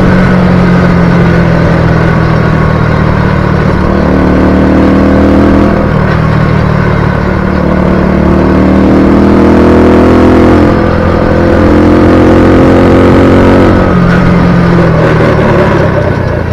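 Small Honda 50 cc automatic engine running hard under load, its pitch rising and falling several times as the throttle is worked, easing off near the end.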